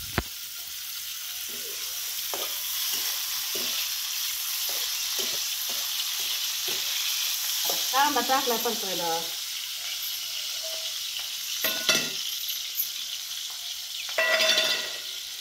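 Onions frying in hot oil in a metal kadhai over a wood fire: a steady sizzle, with a spatula clinking and scraping against the pan in a run of short strokes during the first half.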